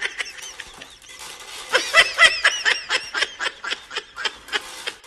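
A person giggling in a quick run of short, high bursts, about four or five a second, growing louder about two seconds in.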